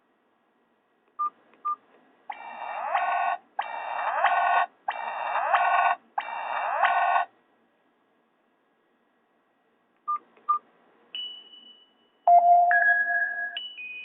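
Nokia 5230 ringtones played back through a Nokia 216 phone's small speaker. Two short key beeps come first, then one ringtone's phrase plays four times, each repeat swelling in loudness, and it stops about seven seconds in. Two more key beeps follow, and a different ringtone starts loudly near the end.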